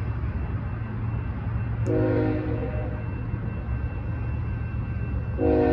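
Locomotive air horn of an approaching BNSF freight train sounding for the grade crossing: a short blast about two seconds in, then a long blast starting near the end, louder than the rest. A steady low rumble lies under it throughout.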